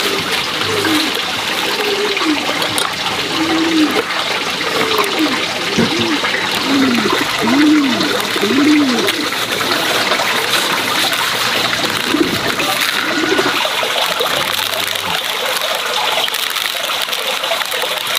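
Steady rush of running water, with a dove cooing a run of short rising-and-falling notes through the first half.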